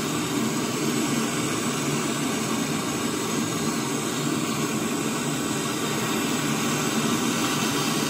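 Brazing torch flame burning with a steady hiss as it heats the leaking copper discharge line of an air conditioner's outdoor compressor for brazing.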